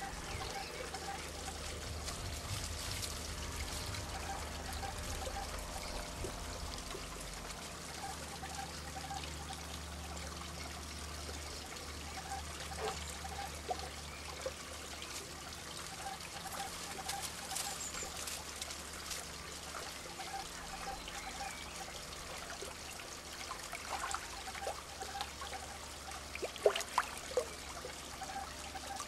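Water trickling and splashing steadily into a garden pond, with a low steady hum underneath and a few short sharp sounds near the end.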